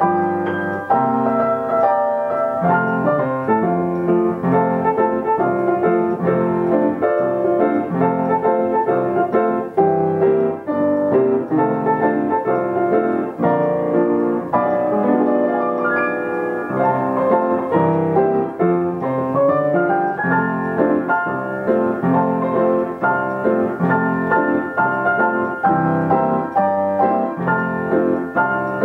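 Yamaha upright piano playing a popular song tune with bass notes and melody, with nobody seated at it: the piano is playing itself.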